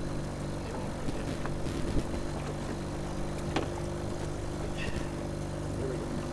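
Boat's outboard motor running steadily at trolling speed, with a couple of light knocks in the boat about two and three and a half seconds in.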